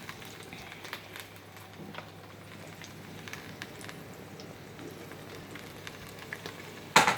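A pot of stew simmering, a faint steady crackle of small pops and bubbles. A single sharp knock near the end.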